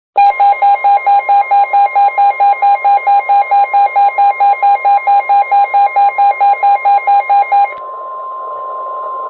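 Midland WR-120 weather radio sounding a warning alert: rapid electronic beeping at about four beeps a second over the steady NOAA Weather Radio 1050 Hz warning alarm tone. The beeping stops a little before the end while the steady tone goes on. The sequence announces an incoming weather warning broadcast, here a Special Marine Warning.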